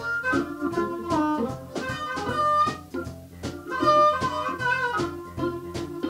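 Background music from a live band in a jazz-blues style, with pitched lead lines over a steady beat.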